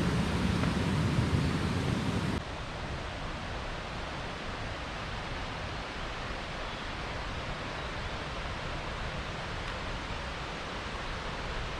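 Steady rush of flowing mountain river water. It is louder and deeper for the first two seconds or so, then cuts abruptly to a quieter, even rush.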